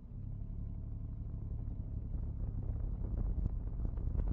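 Supercharged Kubota D722 three-cylinder diesel engine running as the car pulls away at walking pace, heard from inside the cabin; the low engine rumble grows louder toward the end.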